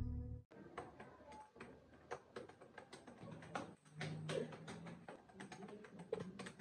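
Laptop keyboard being typed on: faint, irregular key clicks at an uneven pace. At the very start, the tail of music cuts off sharply about half a second in, before the typing begins.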